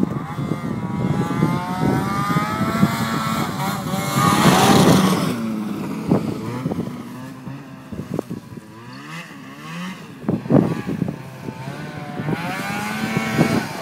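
Yamaha Enticer 340 snowmobile's two-stroke engine revving as the sled rides by through the snow, its pitch rising and falling with the throttle. It is loudest about four to five seconds in, drops away, then revs up again near the end.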